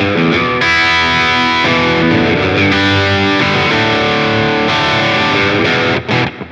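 Electric guitar with a Seymour Duncan P-Rail pickup in its P90 setting, played through an overdriven Friedman Dirty Shirley Mini amp with delay and reverb: a riff of sustained distorted notes and chords, with a brief stop about six seconds in.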